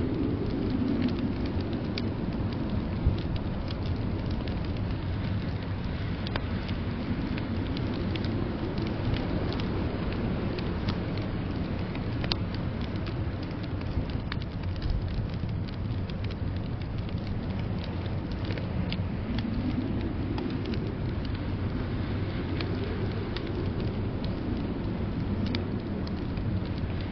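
Wood fire crackling in a fireplace, with scattered sharp pops and clicks, over a steady low rush of blizzard wind that swells and eases a few times.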